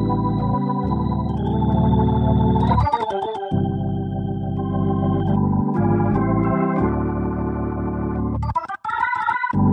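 Organ music: held chords that change about every three seconds, with quick runs of notes between them.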